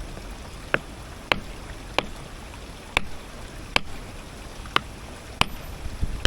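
A hammer striking a stone nodule about eight times, sharp ringing taps less than a second apart, to split it open and see whether it holds a fossil.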